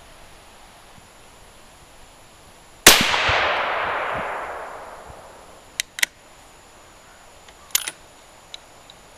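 A single rifle shot from a .308 Winchester Savage model 10 firing a 168-grain Hornady BTHP handload. The shot comes about three seconds in, and its echo rolls on and fades over about two seconds. A few short, sharp clicks follow.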